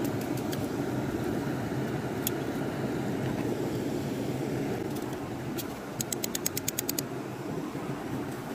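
Steady rush of a small creek's flowing water, with a few light clicks of metal tongs near the start and a quick run of about a dozen light clicks about six seconds in.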